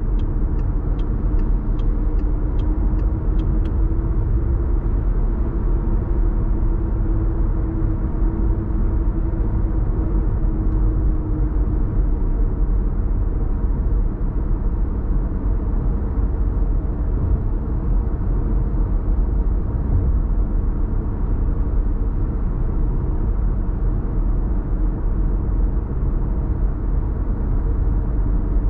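Car cabin road noise at steady highway speed: a constant low rumble of tyres and engine with a faint steady hum. A short run of light, evenly spaced ticks, a little over two a second, comes in the first few seconds.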